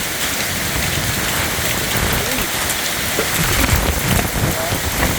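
Heavy rain and hail pelting down in a strong hailstorm: a dense hiss full of small hits, with gusts of wind rumbling louder after about three seconds.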